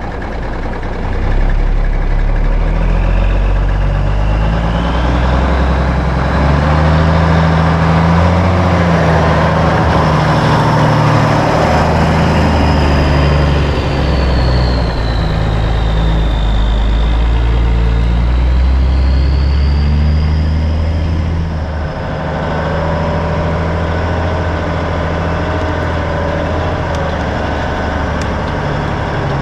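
Cummins diesel engine of a 1984 Freightliner cab-over pulling a grain hopper trailer as the truck drives up close, with a high whine that dips and rises again midway. Its loudness drops about 22 seconds in, and the engine then runs steadily at idle.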